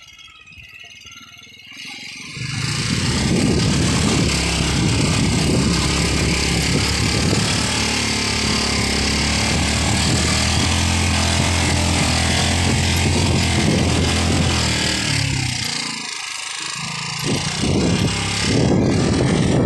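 Small motorcycle engine running under throttle while riding, quiet for the first couple of seconds and then loud and steady. Near the end the engine note drops briefly and then picks up again.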